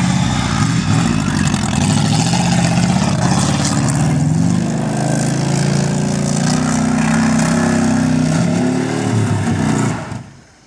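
Oldsmobile 307 V8 engine running loud under load, its pitch rising and falling as it is revved. The sound drops away sharply near the end.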